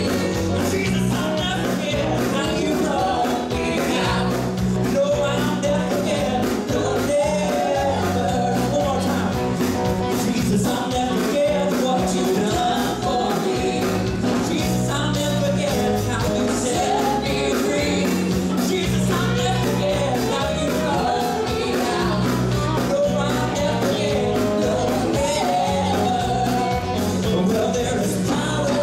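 Live southern gospel band singing and playing an old song, with voices over a steady beat and a stepping bass line.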